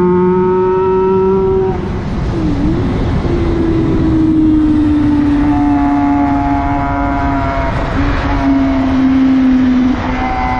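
Racing motorcycle engine running at high revs at speed. Its note dips and recovers sharply about two and a half seconds in, then slowly falls for several seconds, and drops again near the end.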